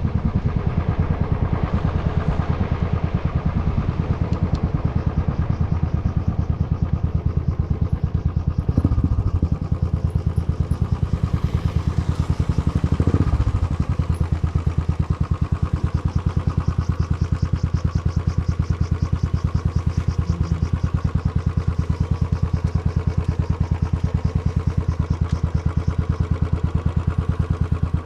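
Motorcycle engine and exhaust running steadily with an even, rapid pulse, so loud that it drowns out the rider's voice. There are two brief swells about a third and halfway through.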